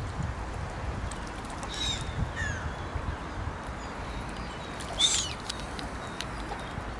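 Short, high-pitched bird calls come twice, about two seconds in and, louder, about five seconds in, over a steady low rumble. Faint clicks of bills dabbling at the water surface come between them.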